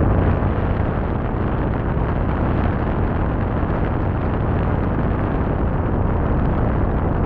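Steady rushing rumble of a moving cable car cabin, even throughout and with no clear knocks or rhythm.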